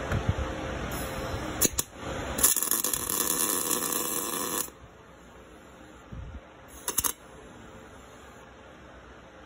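MIG welding arc crackling steadily for about two seconds as a weld bead is laid, then cutting off; a few short sharp clicks come before and after it.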